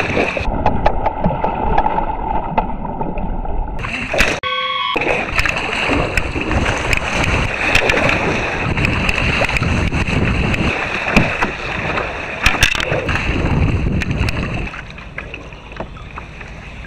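Water splashing and rushing along a kayak as it is paddled hard, the paddle blades churning the water and spray hitting the bow; it eases off for the last couple of seconds.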